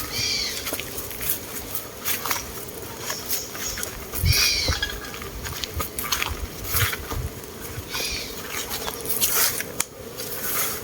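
Honey bees buzzing around the hives in a steady hum, with scattered short clicks. A bird calls near the start, again about four seconds in, and faintly around eight seconds.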